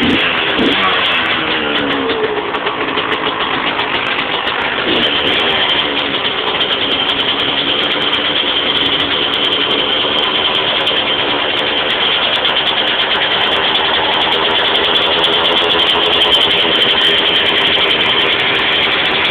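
2001 Yamaha YZ125's two-stroke single-cylinder engine running, its pitch shifting briefly in the first second and again about five seconds in, then holding steady.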